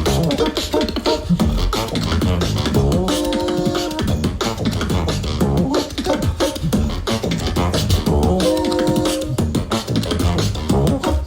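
Beatbox duet: rapid mouth-made kick and snare hits over a deep bass line, with held hummed tones about 3 seconds in and again about 8 seconds in.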